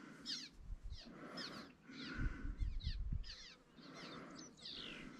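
Birds calling: short, quick down-slurred notes repeating two to three times a second. Low rumbling bumps about two to three seconds in.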